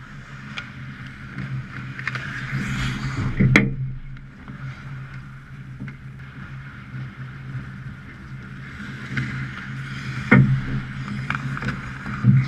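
Ice hockey play: skate blades scraping and carving on the ice, with sharp knocks of sticks and puck, loudest about three and a half seconds in and again near ten and twelve seconds, over a steady low hum.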